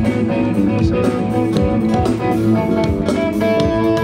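A live band sound-checking, guitar to the fore over a steady beat, heard through a stadium PA's front-fill loudspeaker.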